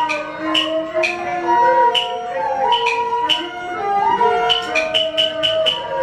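Beiguan opera accompaniment music. A melody instrument plays held, stepping notes over sharp percussion strikes. The strikes come about two a second at first and quicken to about four a second a bit over four seconds in.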